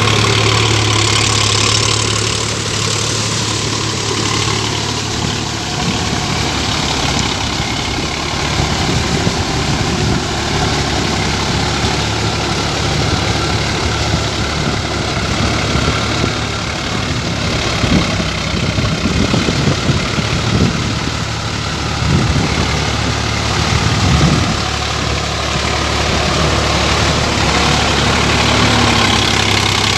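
Sonalika tractor's diesel engine running steadily, with a few louder clattering surges past the middle.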